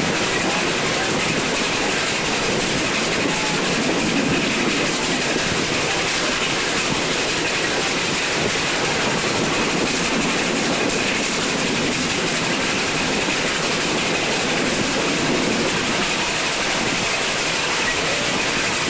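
An open passenger wagon running along the track behind a small heritage locomotive: a steady, even noise of wheels on rail and the wagon rattling.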